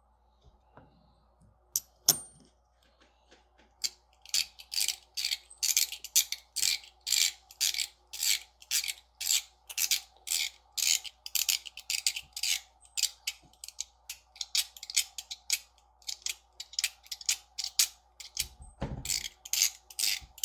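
Zirconium UFO haptic coin being twisted back and forth in the hand. Its detent mechanism gives quick runs of crisp metallic clicks, about two runs a second, starting about four seconds in, with a single click earlier and a dull knock near the end.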